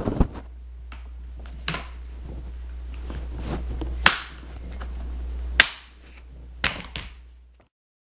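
Plastic retaining clips of a laptop's bottom access panel snapping loose one after another as the cover is pried off: several sharp snaps, the loudest about four and five and a half seconds in, over a low steady hum that stops just before the end.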